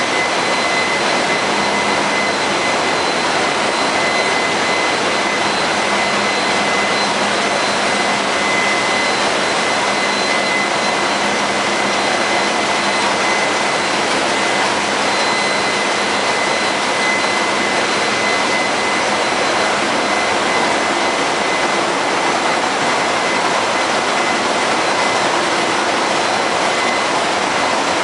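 Ship's engine room machinery running: a loud, steady roar with a constant high whine on top.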